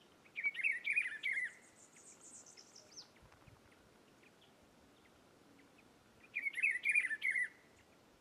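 Rufous-browed peppershrike singing two rich warbled phrases of about a second each, about five seconds apart. Just after the first phrase comes a fainter, very high, slightly falling trill.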